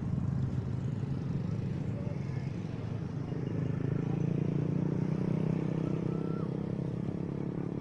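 A steady low engine rumble, swelling a little about three and a half seconds in.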